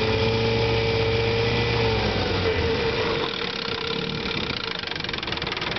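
1972 Evinrude 6 hp two-stroke outboard motor running in reverse gear. About two and a half seconds in, it is throttled down and its pitch falls to a lower, pulsing idle.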